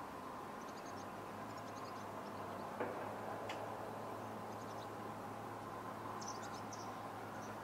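Small birds giving short, high chirps in scattered groups over a steady outdoor hum, with one brief knock about three seconds in.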